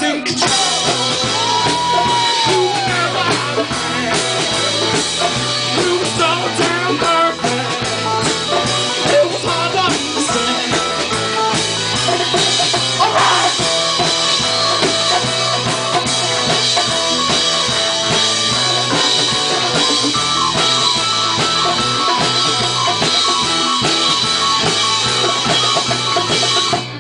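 Live rock band playing, with drum kit and electric guitars, the music cutting off just before the end.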